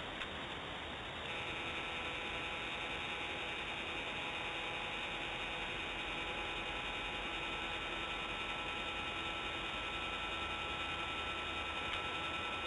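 A nest camera's pan motor whining as it turns: several steady electrical tones that come in about a second in and hold, over a constant steady hiss, with a small click near the start and another near the end.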